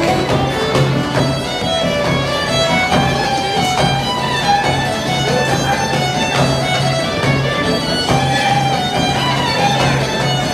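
Live traditional Cretan dance music from a small folk ensemble: a bowed string instrument carries the melody over plucked lutes and guitars. The plucked instruments keep a low note going in an even, repeating pulse.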